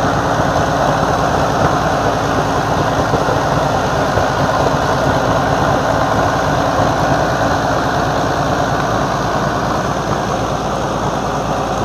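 M47 Patton tank's air-cooled V12 engine running steadily on a test stand, a loud, even engine sound with no revving.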